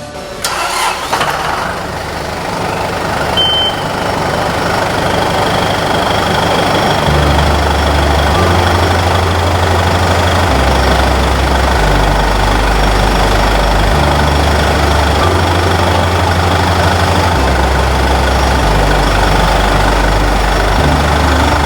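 John Deere 6125D tractor's diesel engine running steadily, with a short high beep about three and a half seconds in.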